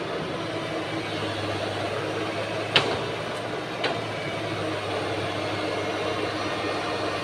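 Excavator diesel engine running steadily, with two sharp knocks about a second apart midway, the first the louder.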